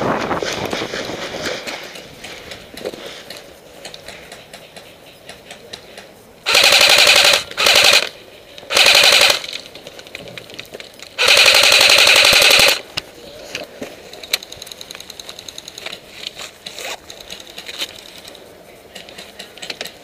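Airsoft electric gun firing four full-automatic bursts in quick succession, the last the longest at about a second and a half. Between and after them come faint scattered clicks and rustling.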